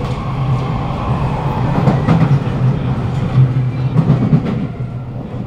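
Inside a Kawasaki Nippon Sharyo C751B metro car running at speed: a steady low hum from the traction motors with wheel-on-rail noise. From about two seconds in, a train passing close by on the next track makes it louder and rougher, and it eases near the end.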